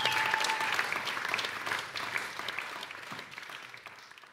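Audience applauding, the clapping fading out steadily through the second half.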